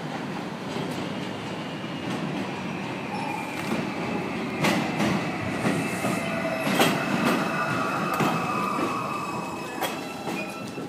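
R142 subway train pulling into an elevated station and slowing, wheels squealing thinly on the rails with a high whine that falls in pitch as it brakes, and sharp clacks over rail joints about halfway through.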